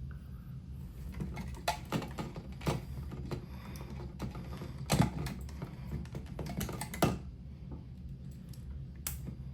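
Irregular small clicks and taps of hands joining the green and bare copper ground wires in a wire connector, with sharper clicks about five and seven seconds in, over a low steady hum.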